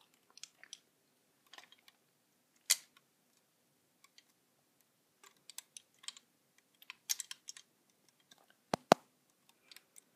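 Irregular light clicks and taps of a plastic rubber-band loom and hook being handled as bands are looped, with a sharper double click near the end.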